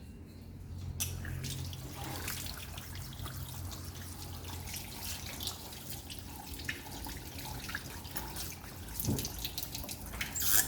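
Water running from a tap and splashing as hands are rinsed under it, with small drips and spatters throughout and a louder burst of noise near the end.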